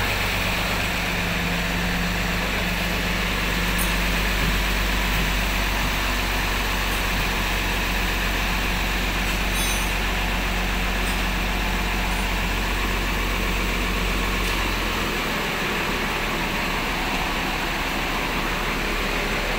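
Intercity bus diesel engine idling steadily under a constant hiss; about fifteen seconds in its low note changes and part of it drops away.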